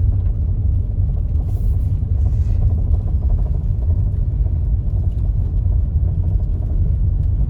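Subaru Forester driving on a dirt road, a steady low rumble of engine and tyres.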